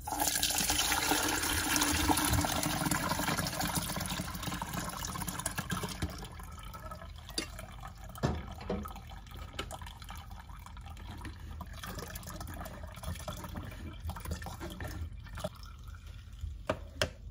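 Tamarind water poured from a saucepan through a mesh strainer into a pitcher. The pour starts suddenly and loudly, then tapers off over about six seconds into quieter draining through the strainer, with a few light knocks later on.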